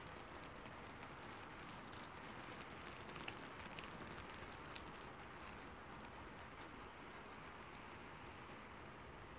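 Rain falling on a rooftop: a faint, steady patter with scattered sharp drop ticks, thickest in the first half.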